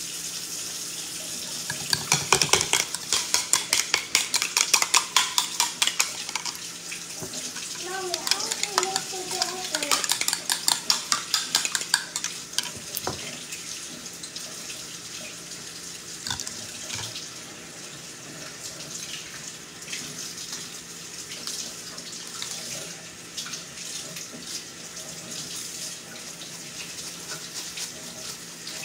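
A fork beating in a ceramic bowl: rapid clinking, several strokes a second, from about two seconds in until about twelve seconds, then only occasional clinks. A steady hiss runs underneath.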